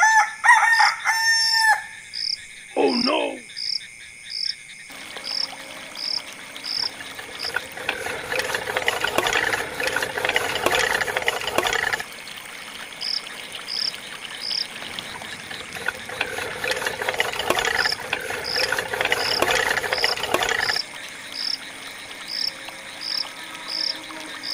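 Rural ambience: a rooster crows at the start, then insects chirp steadily at about three chirps a second, with two longer stretches of busier bird calls.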